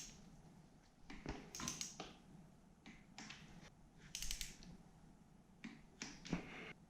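Scattered sharp metallic clicks and taps, some in quick little runs, from hand tools and parts being worked on a dirt bike during reassembly.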